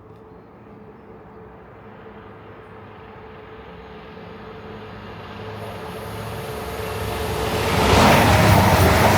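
East Midlands Railway Class 222 Meridian diesel multiple unit approaching at speed. Its noise builds steadily from faint and reaches full loudness about eight seconds in as the train draws level.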